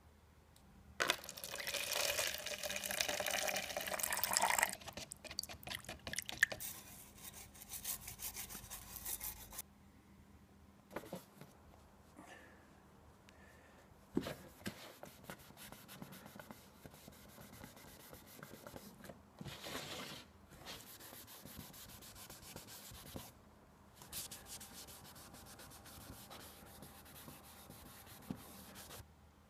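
Cloth rubbing over the body of a pewter teapot being polished with olive oil: scrubbing strokes in stretches with short pauses, loudest in the first few seconds.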